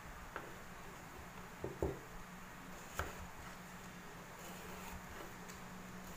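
A kitchen knife slicing through a raw carrot and knocking on a wooden cutting board: a few separate cuts in the first half, the loudest a close pair about two seconds in, over a faint steady hum.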